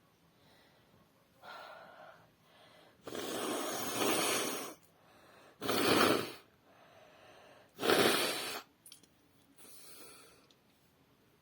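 A woman sneezing wetly into a tissue: three loud noisy bursts about two seconds apart, the first lasting well over a second, with quieter breaths before and between them.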